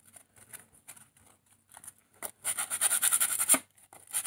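Sandpaper wrapped on a cork sanding block being rubbed over a carved wooden butter knife in quick back-and-forth strokes, starting about halfway in, breaking off briefly and starting again at the end. Before that, faint scratching and rustling as the sandpaper is wrapped around the block.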